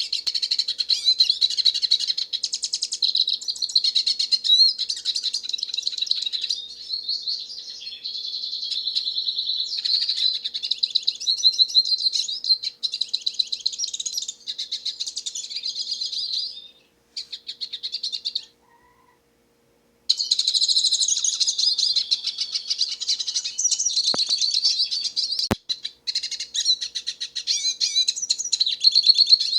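Hooded siskin singing: a long, fast, twittering song of rapid chirps and trills that breaks off for about a second and a half past the middle, then resumes. Two sharp clicks sound a few seconds after the break.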